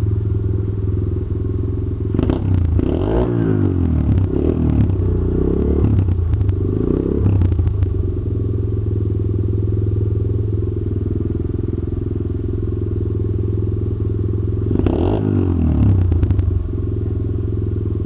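143cc Red Baron pit bike's single-cylinder four-stroke engine idling, revved in several quick throttle blips a couple of seconds in, then once more briefly near the end before settling back to idle.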